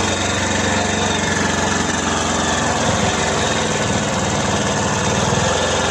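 Lister Petter silent-canopy diesel generator running steadily, with an even engine beat.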